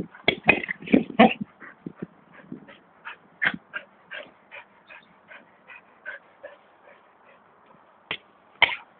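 Spanish Water Dog giving short, repeated yips and whines, about two a second. They are loudest in the first second and a half, then go on more softly, with one louder one near the end.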